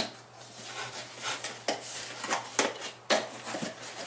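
Cardboard shipping box being cut and pulled open by hand: a string of short scrapes and rustles of cardboard and packing tape.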